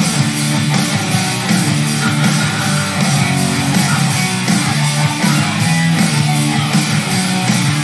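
Live rock band playing the guitar-driven opening of a song, with electric guitars and bass carrying a steady riff.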